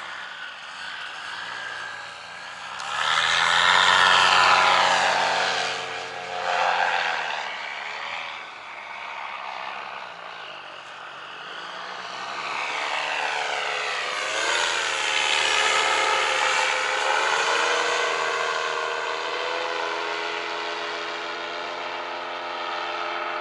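Paramotor engine and propeller droning in flight, its pitch sweeping up and down, swelling louder twice as the machine passes.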